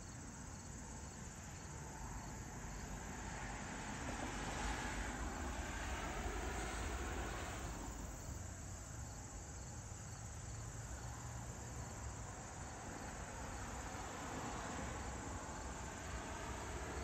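Crickets chirping steadily, with the rushing tyre noise of cars passing on a road: one swells up about four to eight seconds in, another near the end.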